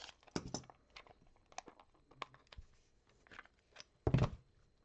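A sealed hard plastic trading-card case being opened and the stack of cards handled: scattered small plastic clicks and crackles, with a louder crackle about four seconds in.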